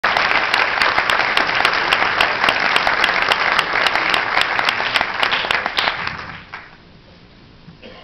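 Audience applauding in a concert hall, a dense patter of many hands clapping, dying away about six and a half seconds in.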